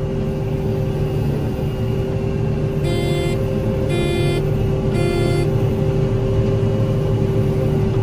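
John Deere 9610 combine running steadily, heard from inside the cab, with its grain-tank-full warning beeper sounding three short beeps about a second apart, a few seconds in: the grain tank is full and needs unloading.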